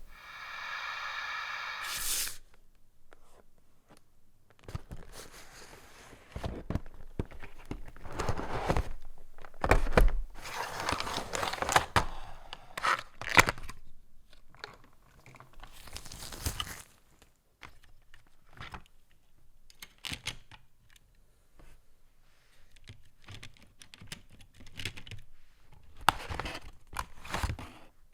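Unboxing of a model locomotive: the packaging is handled, with cardboard and plastic scraping, rustling and tearing in irregular bursts and a few knocks. It opens with a short pitched tone of about two seconds.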